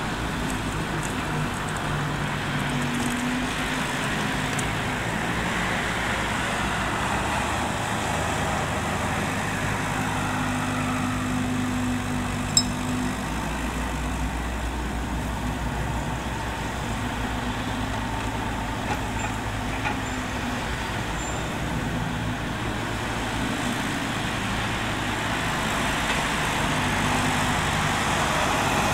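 Bobcat 331 mini excavator's diesel engine running steadily, its pitch shifting as it digs, over passing road traffic. There is one sharp knock about halfway through, and a heavy truck grows louder near the end.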